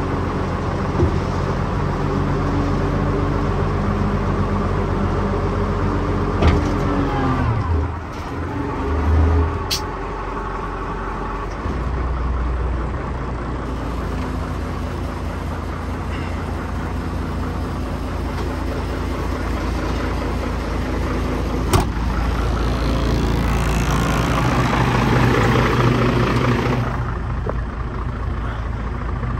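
The 10.5-litre inline-six diesel engine of a 1998 Ford LT9513 dump truck runs steadily while it drives the hydraulic hoist that raises the dump bed. About 7 to 8 seconds in the engine speed drops. Two sharp clicks come later, and the sound grows louder and noisier for a few seconds near the end.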